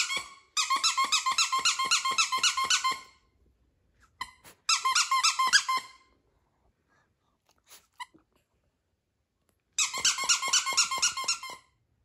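A squeaky dog toy squeezed over and over, fast, about seven high squeaks a second, in three runs of one to two and a half seconds each.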